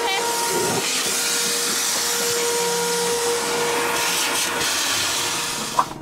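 Wet/dry shop vac running with a steady whine and a rushing hiss of air, just after a wad of hair was cleared from its air path. It stops with a click near the end.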